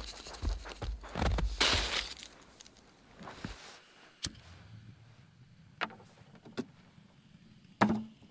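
Crunching of powdery snow as a metal pot is scooped full of snow. Then four light clicks and knocks of a gas stove being put together: the burner fitted onto a Primus gas canister and the snow-filled reactor stove pot set on top. The last knock, near the end, is the loudest.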